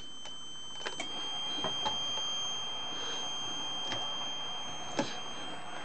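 Steady high-pitched whine from a Heathkit HW-22A tube transceiver setup while it transmits a tune carrier into a dummy load, with a few faint clicks.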